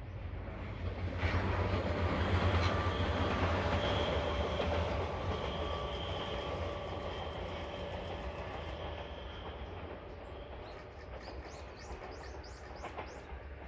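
JR West KuMoYa 443 electric inspection car, a two-car electric train set, running past on the rails. It grows louder about a second in, is loudest over the next few seconds, then fades slowly as it draws away.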